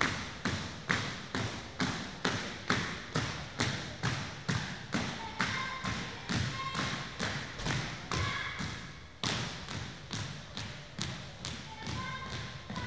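A school flag escort marching in step on a wooden gym floor: regular stamping footsteps about twice a second, echoing in the large hall.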